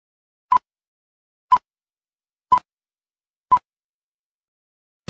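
Film-leader countdown beeps: four short, identical high beeps one second apart, one for each number as the countdown ticks down.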